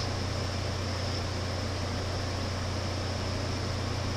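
Room tone: a steady low hum with a constant hiss over it, unchanging throughout.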